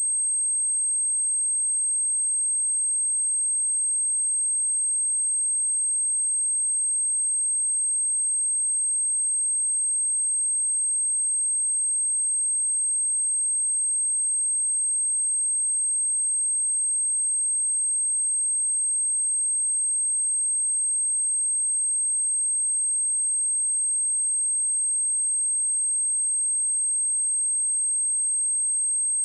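A pure, steady 8386 Hz sine-wave test tone, a single high-pitched whistle held at a constant level, used for testing speakers and shaking water and dust out of them.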